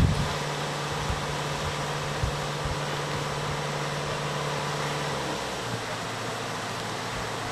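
Flooded mountain river rushing steadily, a loud even roar of fast brown water through a walled channel. Under it a wheeled excavator's diesel engine runs steadily, its hum dropping a little in pitch about five seconds in.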